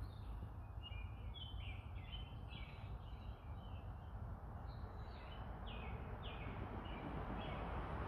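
A songbird singing a run of short falling notes, about two a second, over a steady low rumble in the background.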